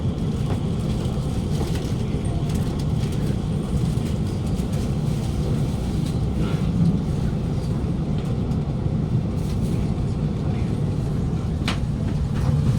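Steady low hum inside an Alstom Movia R151 train carriage standing at a station platform with its doors open, mostly the carriage's air-conditioning and platform ambience. A sharp click comes near the end.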